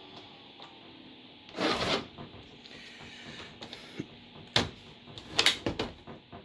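Compaq LTE Elite laptop being undocked and lifted off its Compaq SmartStation docking station. First comes a short scraping rush of plastic, then several sharp plastic clicks and knocks as the latch lets go and the casing is handled.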